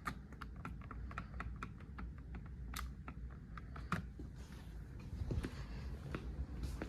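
Quick, irregular fingertip taps and clicks on the Carrier Infinity touchscreen user interface, about three a second, thinning out after about four seconds, over a low steady hum.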